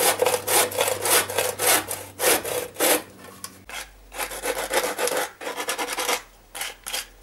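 Handsaw cutting through a bamboo pole in rasping back-and-forth strokes, about four a second. A little over three seconds in, the sawing stops and a sanding block rubs the cut end in quicker, lighter, uneven strokes.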